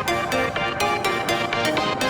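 Background music with an electronic sound and a steady beat.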